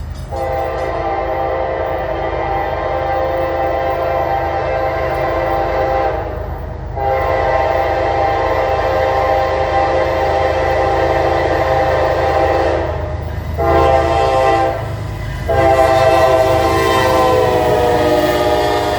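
Norfolk Southern locomotive air horn sounding the grade-crossing signal: two long blasts, a short one and a final long one, over the low rumble of the fast-moving train. The horn's pitch sags slightly near the end.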